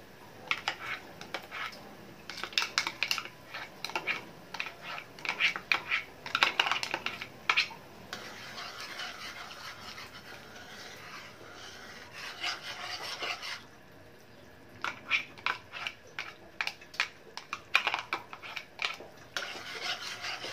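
Metal spoon clinking and scraping against a metal wok while stirring sauce into simmering liquid. There are two bouts of quick clinks, with a softer, steadier rasping stretch between them.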